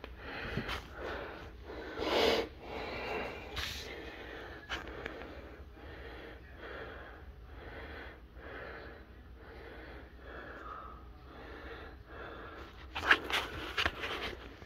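A person breathing and sniffing close to the microphone, with irregular rustles. There is a louder burst about two seconds in and a cluster of sharper sounds near the end, over a low steady hum.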